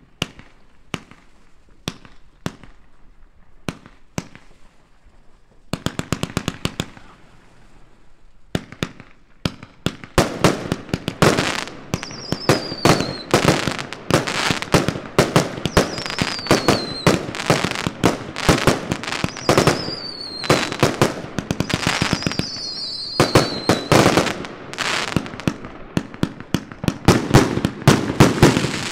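Svea Fireworks 'Trippel Decker' consumer compound firework cake firing. At first there are spaced single shots and bursts; about a third of the way in it builds into a dense, rapid barrage of launches and bursting shells. A few short falling whistles sound over the barrage in its second half.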